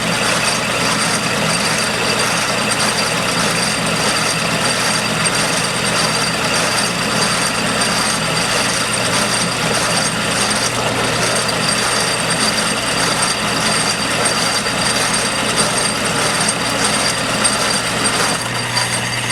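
Atlas metal lathe running steadily at speed with its gear train and belts whirring and clattering while it takes a cut.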